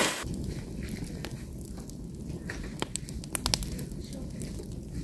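Wood fire of branches burning, the flames giving a low steady rumble with many sharp crackles and pops, a cluster of louder pops around the middle. A brief rustle of dry leaves opens it.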